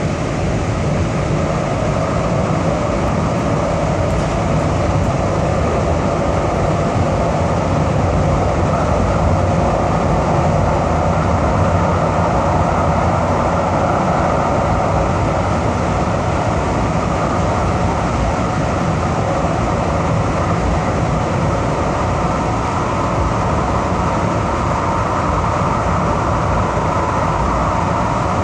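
Siemens SD-160 light rail car running between stations, heard from inside the passenger cabin: steady running noise of the car and its wheels on the rails, unbroken throughout.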